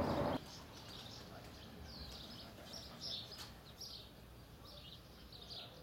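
Small songbirds chirping and twittering in short, repeated phrases, against a quiet background. A louder sound from before cuts off about half a second in.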